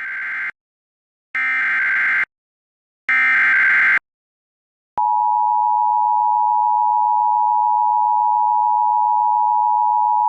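Emergency Alert System SAME header: three bursts of rapid warbling digital data tones, each about a second long, followed about five seconds in by the steady attention-signal tone, which starts abruptly and holds, announcing a new weather warning.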